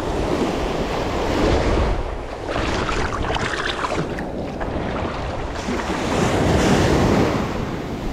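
Small ocean waves breaking and washing in around the feet in the shallow surf, swelling louder twice, with wind buffeting the microphone.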